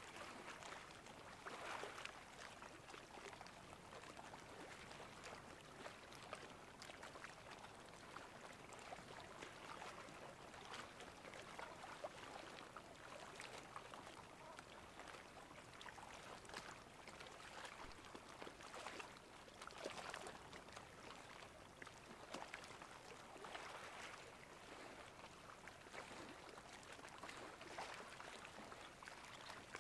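Faint seawater lapping and trickling at high tide: a steady soft crackle of many small splashes and drips.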